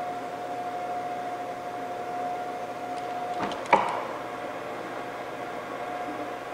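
Steady hum of a running fan motor, with a steady whine over a hiss. One sharp click comes a little past halfway.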